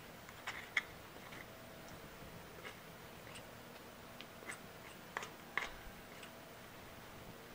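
A steel spoon clinking and scraping against a metal pan while wheat flour roasting in ghee is stirred: about ten faint, irregular clicks.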